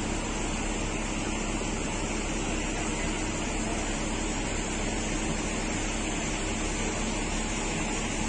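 A steady low machine hum under an even hiss.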